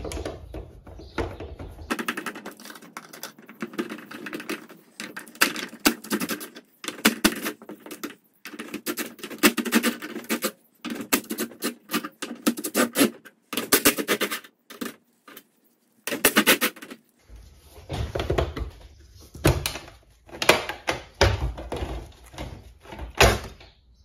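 Irregular metallic clicks, knocks and rattles as hardware is worked loose and the old opener bracket is taken off a steel garage door.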